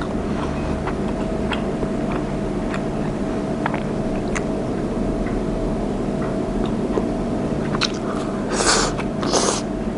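Light clicks of wooden chopsticks against ceramic dishes, then near the end two short noisy bursts of eating as a mouthful of soft steamed cabbage is bitten and chewed, over a steady low hum.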